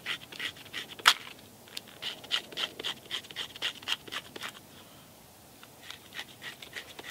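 A knife blade scraping birch bark into fine tinder fibres, in quick repeated strokes about four a second, with a sharp knock about a second in. The scraping pauses briefly past the middle, then resumes more faintly.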